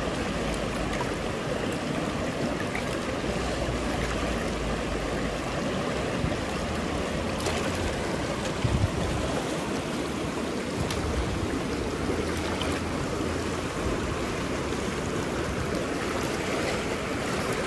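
River water rushing steadily over rocks, a continuous even rush with no distinct events.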